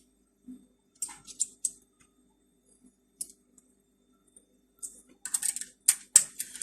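Light clicks and short rustles from fabric and small sewing tools being handled, getting busier near the end, over a faint steady hum.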